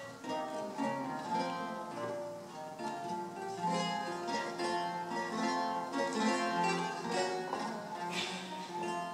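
Solo eight-course Renaissance lute by Joel van Lennep, played with the fingers: Elizabethan lute music, plucked melody notes and chords ringing over a bass line.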